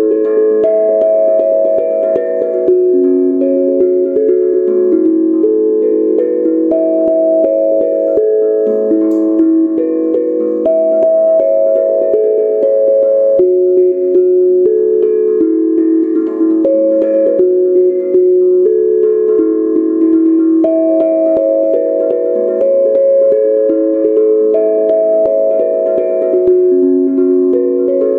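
Steel tongue drum tuned to A major pentatonic at A = 432 Hz, played with a pair of soft mallets: a steady flow of struck notes that ring on and overlap one another.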